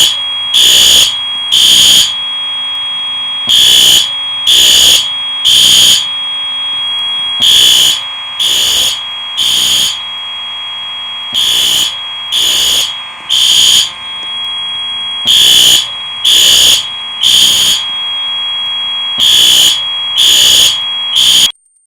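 Fire alarm horns sounding in the temporal-3 evacuation pattern: three half-second blasts about a second apart, then a pause, repeated over and over, with a steady high tone carrying on between the blasts. The alarm cuts off suddenly shortly before the end.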